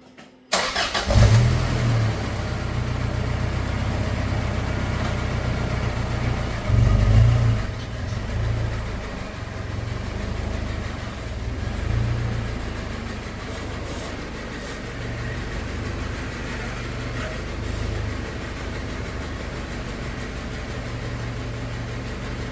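Toyota Hilux Surf engine starting about half a second in, then idling steadily with a few brief rises in level. It is run to check the power steering after the rack rebuild, with the rack guide backed off a full turn, for the pump whine that a too-tight guide and air in the system had caused.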